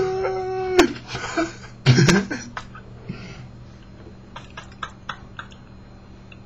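A man's voice holding one high, steady vocal note that breaks off just under a second in, followed by breathy laughing and a loud cough-like burst. A few seconds later come several light, sharp clicks.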